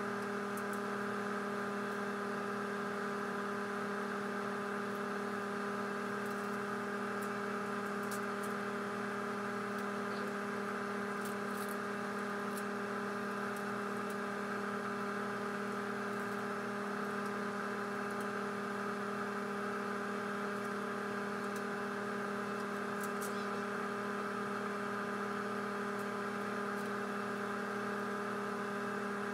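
Electric motor humming steadily at one unchanging pitch, with a few faint light clicks now and then.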